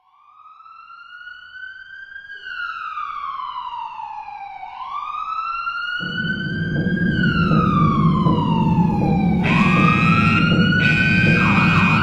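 Siren wailing, its pitch rising and falling slowly over and over, growing louder. It is the alarm signal for an earthquake drill. About halfway through, a loud, steady, noisy sound joins under it.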